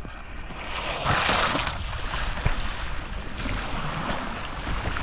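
Rushing, splashing river water around a kayak in a small rapid, with wind buffeting the microphone; the splashing is loudest about a second in.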